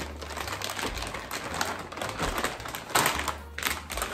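Crinkling and crackling of a metallic anti-static bag as a graphics card is pulled out of it, irregular and loudest about three seconds in.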